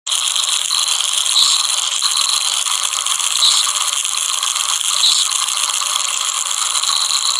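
A steady, bright rattling hiss with almost no low end, starting suddenly and running evenly, with a few brief swells.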